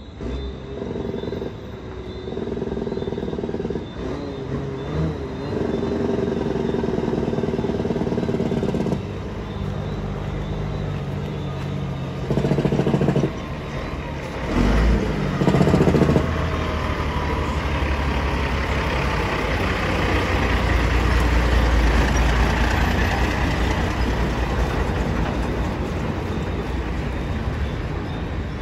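International truck's Cummins N14 straight-six diesel engine pulling a load of sand, its pitch dropping and climbing again several times in the first half as it works up through the 13-speed gearbox. From about halfway a deep, steady low drone takes over.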